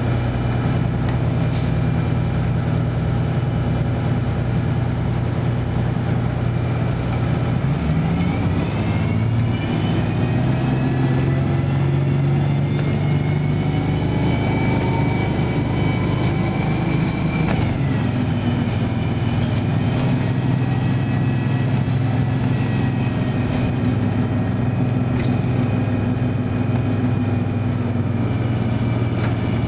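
Detroit Diesel 6V92TA two-stroke V6 diesel of a 1995 Nova Bus Classic, heard from inside the passenger cabin: it runs at a steady low idle, then about eight seconds in it revs up as the bus pulls away, with a high whine climbing alongside. Just past halfway the pitch drops suddenly and climbs again, the automatic transmission shifting up, before settling into a steady cruise.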